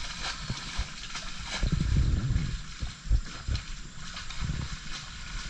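River water splashing and sloshing around a person wading and swimming, with scattered small knocks and a louder low rumble about two seconds in.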